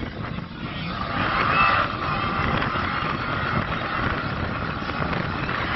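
A drag car doing a burnout: the engine running hard under load, with a wavering high squeal of spinning tyres over its rumble.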